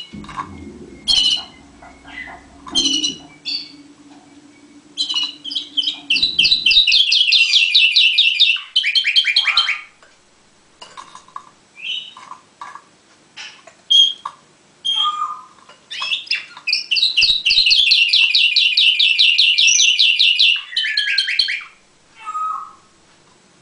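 Orpheus song canary singing: short scattered notes and calls, with two long, fast rolling trills, one about five seconds in and a second, longer one about sixteen seconds in.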